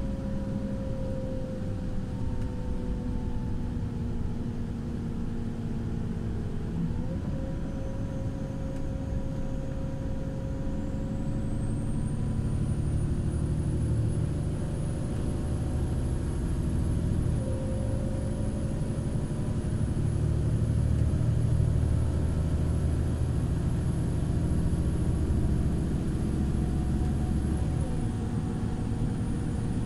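Irisbus Crossway 12M bus driving, heard from on board: steady diesel drone and road rumble, with whining tones that jump in pitch three times.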